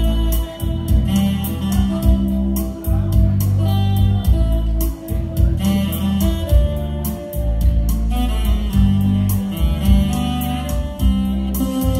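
Instrumental introduction on an electronic keyboard: a held melody line over full bass chords and a steady beat, before the vocal comes in.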